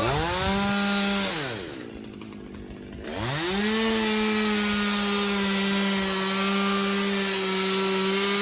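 Two-stroke chainsaw engine revved up to full throttle, let back down to idle for about a second and a half, then revved up again and held at a steady high speed.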